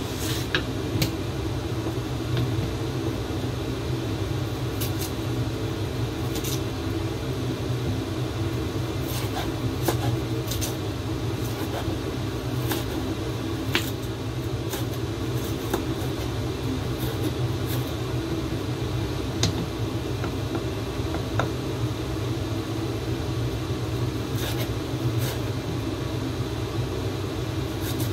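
Chef's knife chopping fresh ginger on a cutting board: scattered, irregular sharp taps of the blade on the board. Under them a steady machine hum, like a fan or appliance motor, runs throughout.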